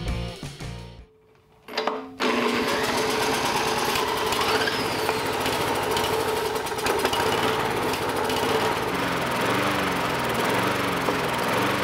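A walk-behind lawn mower's small engine running steadily, kept going only by starting fluid sprayed straight into its carburetor with the fuel tank empty. It comes in about two seconds in, after a short tail of music and a brief quiet, and its pitch wavers slightly near the end.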